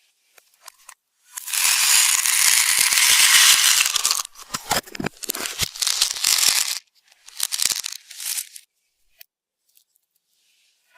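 Slime being squeezed and worked by hand: a dense crackling for about three seconds, then scattered clicks and pops in two further spells.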